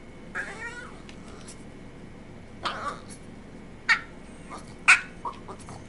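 Boston Terrier vocalizing while begging for food: a short gliding whine near the start, then three short, sharper vocal sounds about a second apart, the later ones louder.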